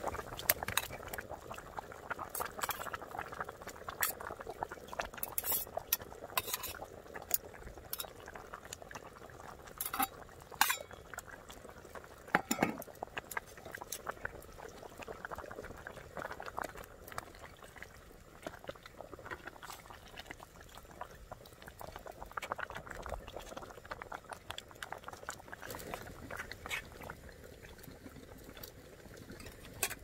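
Camp cooking: a steady bubbling hiss from a pot, with metal utensils stirring and clinking against the dishes at irregular moments, one louder ringing clink about twelve seconds in.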